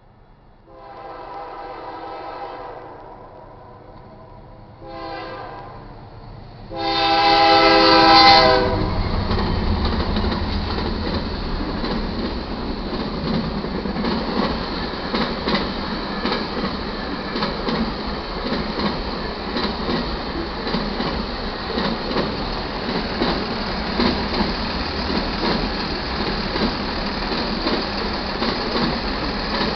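Air horn of a BNSF GE C44-9W diesel locomotive sounding a long, a short and a long blast for the grade crossing, the last blast the loudest. The locomotives then pass and the auto carrier train rolls by with a steady rumble and regular clicks of wheels over rail joints.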